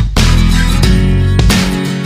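Background music led by guitar, with a strong bass line and note changes every fraction of a second.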